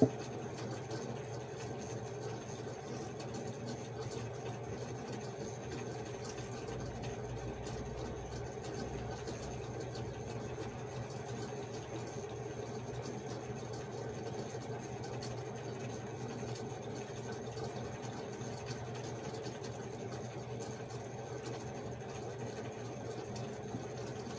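A steady low mechanical hum, like a small motor running, with faint soft handling noises over it.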